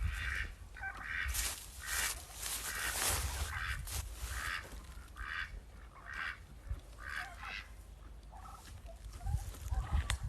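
Farm poultry calling, a run of short repeated calls about one to two a second that thins out near the end.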